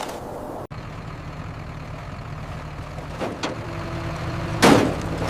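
A low, steady engine-like rumble that starts abruptly about a second in, with a knock about three seconds in and a louder knock near the end.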